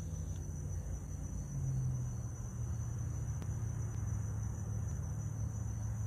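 Steady low vehicle rumble picked up by a dashcam's microphone inside a car, with a faint steady high-pitched whine over it.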